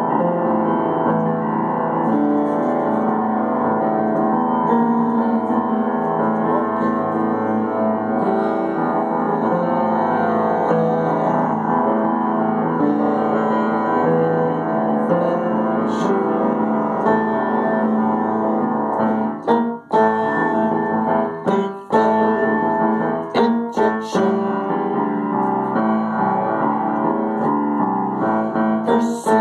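Piano music: held, overlapping notes at first, turning to shorter, separated notes with brief pauses from about two-thirds of the way in.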